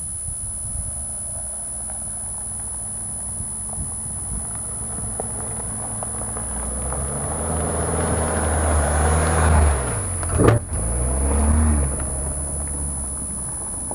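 Ford Kuga SUV approaching along a dirt track and driving past, its engine growing louder as it nears, with tyres crunching on the dry gravel. The engine pitch drops as it passes, with a brief loud thump at the closest point, and the sound then fades.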